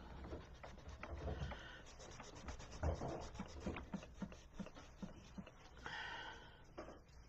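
Ink pen scratching and rubbing on drawing paper as lines are inked, faint. Behind it is a soft, even ticking about three times a second, and there is a single low knock about three seconds in.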